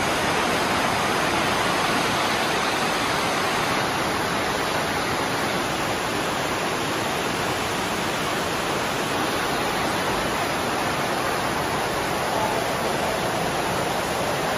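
Fast-moving floodwater rushing and churning: a steady, even rush of water.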